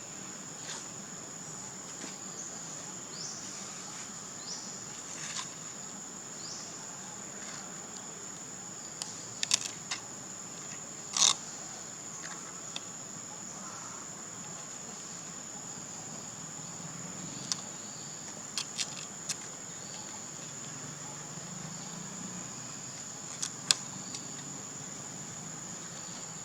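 Insects chirring in one steady, high-pitched tone, broken by scattered sharp clicks, a few close together around ten seconds in and the loudest about eleven seconds in.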